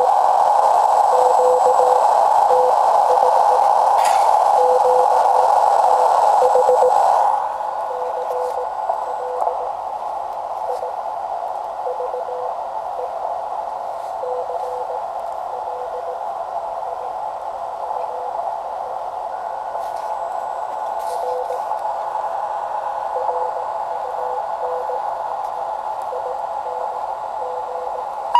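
Morse code (CW) from a distant New Zealand amateur station heard on a shortwave receiver: a weak tone keyed in dots and dashes under band hiss. The hiss drops sharply about seven seconds in.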